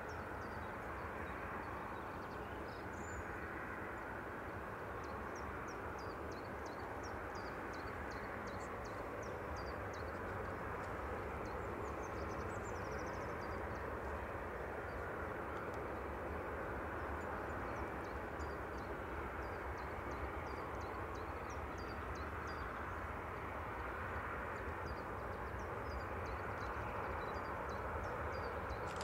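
Steady jet noise from an Airbus A330-343E's Rolls-Royce Trent 700 engines as it rolls out along the runway after landing, heard from a distance, with birds chirping throughout.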